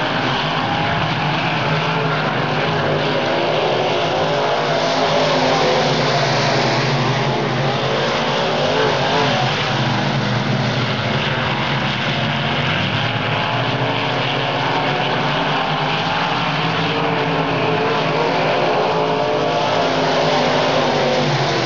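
A field of dirt-track stock cars racing around the oval, several engines running hard at once, their pitch rising and falling continuously as they lift and accelerate through the turns.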